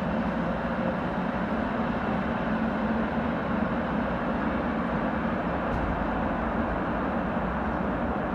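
Steady, even vehicle rumble with no distinct events.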